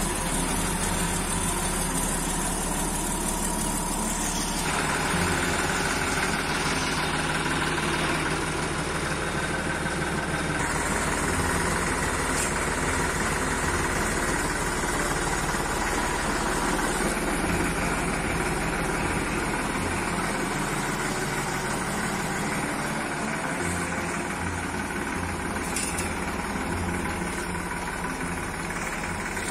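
A new Massey Ferguson 9500 tractor's diesel engine running steadily at idle, just after being started with the key.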